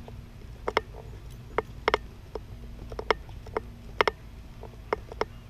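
Footsteps on a concrete sidewalk: sharp, irregular clicks about every half second to a second, some in quick pairs, over a steady low rumble.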